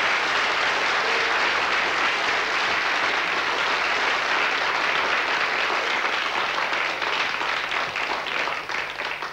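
Crowd applauding: dense, steady clapping that thins to scattered individual claps near the end.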